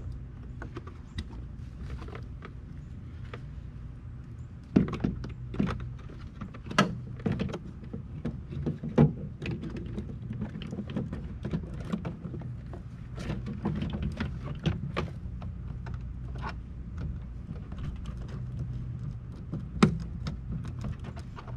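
Irregular sharp plastic clicks and knocks from a car's door trim panel and its push-in retaining clips being handled and refitted. The clicks come thickest through the middle, with one last loud click a few seconds before the end.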